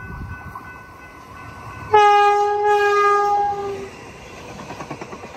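Metrolink Arrow diesel multiple unit passenger train sounding its horn in one loud blast of just under two seconds, starting about two seconds in. Under the horn is the rumble of the train on the rails, with some wheel clicks.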